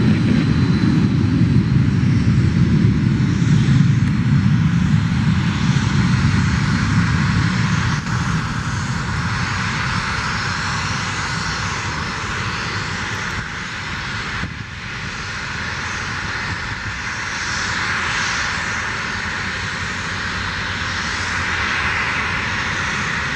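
The twin Pratt & Whitney PW617F turbofans of an Embraer Phenom 100 business jet running at takeoff power through the takeoff roll, liftoff and climb-out. A heavy low rumble for about the first eight seconds gives way to a thinner, hissing jet roar as the aircraft climbs away.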